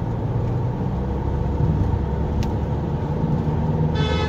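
Steady low road and engine rumble of a car driving through a road tunnel, heard from inside the cabin. A faint tick sounds about halfway through, and a brief higher-pitched sound comes just before the end.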